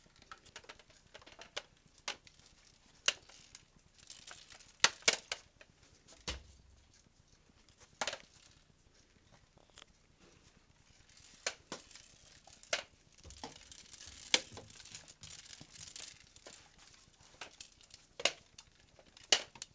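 Plastic hamster exercise balls, each with a hamster running inside, rolling and knocking into one another and into furniture: irregular sharp plastic clacks with softer rattling in between.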